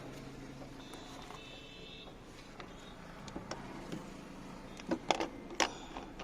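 A few sharp metallic clicks and knocks of tools and parts being handled while a starter motor is taken apart, the loudest about five seconds in, over a low steady background hum.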